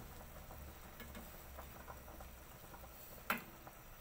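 A stainless steel ladle skimming foam off boiling fish soup, with a few light ticks and one sharp clink of metal on the cookware about three seconds in.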